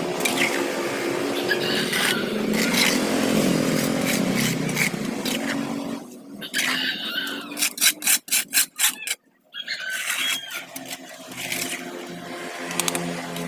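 Metal hoe scraping and scooping wet sludge in a concrete drainage ditch, over a steady engine-like drone through the first half. A quick run of sharp clicks, about five a second, comes a little past the middle.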